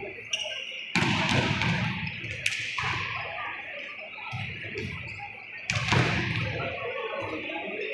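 Volleyballs being spiked in warm-up: sharp slaps of hand on ball and balls smacking the court. The loudest come about a second, two and a half and nearly six seconds in, each echoing in the large hall.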